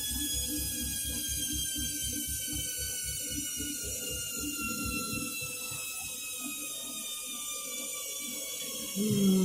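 Candy washing machine's drum motor winding down, its whine falling steadily in pitch while the drum's rhythmic low thumping fades away. Near the end a louder low hum starts.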